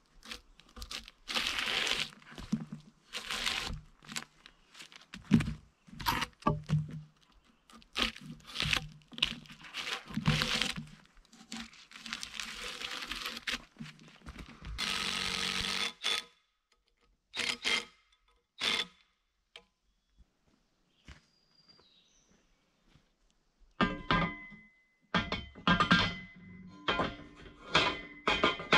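Irregular thuds and knocks in short, separate bursts with abrupt silent gaps between them. Music with a held note comes in near the end.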